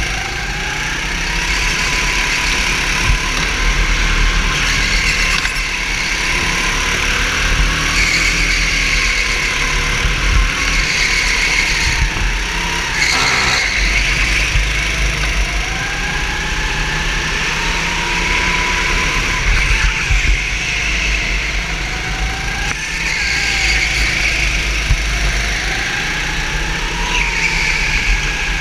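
Racing kart engine heard from onboard, revving up and down as the kart laps the track, its pitch rising repeatedly and then dropping back, over steady running noise.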